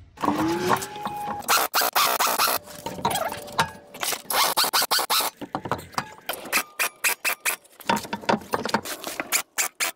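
Irregular metallic clanks, clicks and scraping from hand tools and brake parts as a car's brake caliper and road wheel are refitted, with a few short squeaks.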